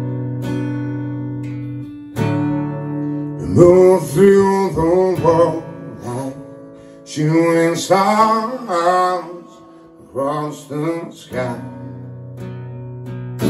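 Acoustic guitar strummed and left ringing, with a man singing long held phrases over it in three passages.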